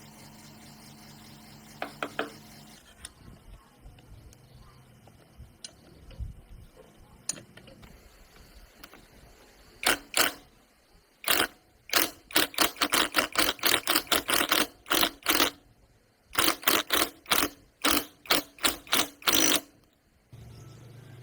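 Quick, repeated sharp strokes of a hand tool on the workpiece, about two to three a second in bursts, through the second half. A steady low hum stops about three seconds in.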